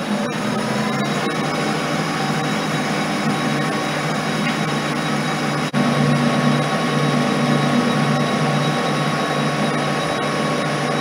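Colchester lathe running steadily at speed while a tool cuts the edge of a 16 gauge galvanized steel sheet, held only by a pressure turning tool against the chuck, into a disc.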